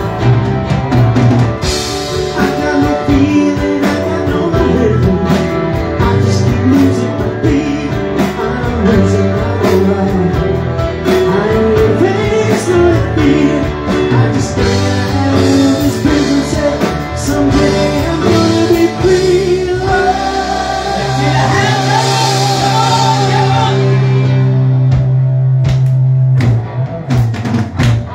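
Live rock band playing with lead singing, electric guitar, bass and drum kit. About twenty seconds in, the band holds a long chord under a wavering high note.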